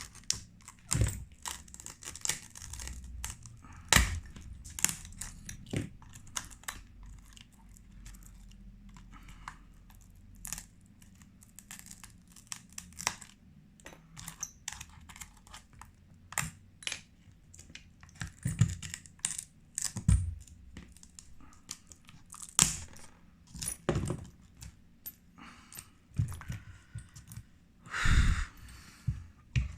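Cracked back glass of a phone being scraped and picked off after laser separation: irregular scrapes, small cracks and sharp clicks, with fragments clinking.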